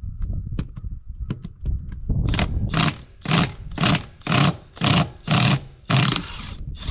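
Metal hammer blows driving a socket onto a tractor wheel bolt head: a few light taps, then about nine hard strokes at a steady rate of roughly two a second.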